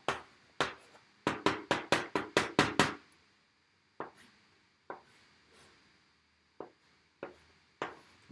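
Chalk strokes on a blackboard while drawing: a fast run of short scratching strokes for about three seconds, then a few single strokes a second or so apart.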